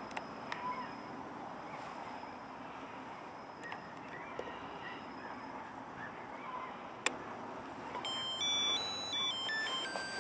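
Faint outdoor ambience with a few light clicks, then, about two seconds before the end, a run of short electronic beeps stepping up and down in pitch.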